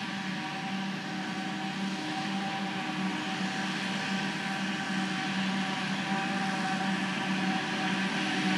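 John Deere self-propelled forage harvester chopping grass silage and blowing it into a trailer: a steady machine drone with a high whine over it, growing slowly louder as the machines come closer.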